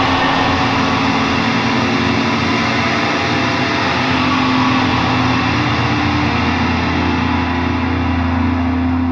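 A rock band's closing chord held and ringing out: a dense, loud wall of sustained guitar and bass notes, with the high end starting to fade near the end.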